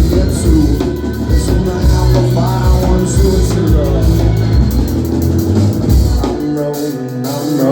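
A live band playing an instrumental passage of a rock song. The deep bass drops out about six seconds in, leaving the higher instruments playing on.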